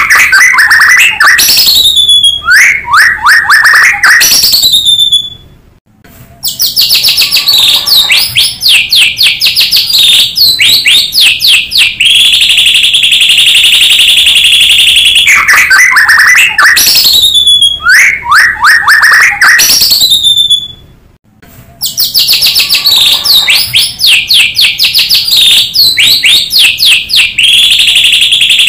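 White-rumped shama (murai batu) song, very loud: long steady high whistles alternating with fast runs of rising and falling notes, broken by two brief pauses. The same sequence repeats about every 15 seconds, a looped lure recording meant to provoke other shamas into singing.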